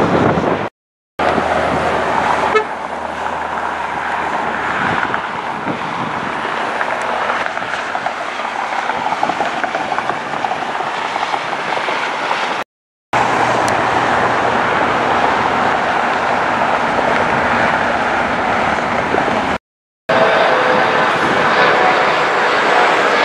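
Loud jet airliner engine noise, a steady rushing sound with some whining tones near the end, in several short clips cut off by brief moments of dead silence.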